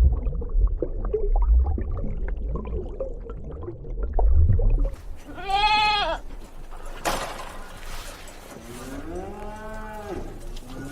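Livestock calling: a single high, bleat-like call about halfway through, then lower drawn-out calls near the end, over a low rumble in the first half.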